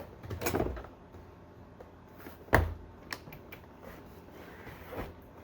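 Plastic interior door panel of a Ford Fiesta being lifted off the door and handled: a few scattered clicks and knocks, the loudest a single sharp knock about two and a half seconds in.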